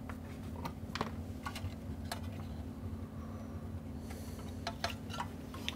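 Scattered light clicks and taps of a sheet-metal amplifier case being handled and its fan panel taken off, over a steady low hum.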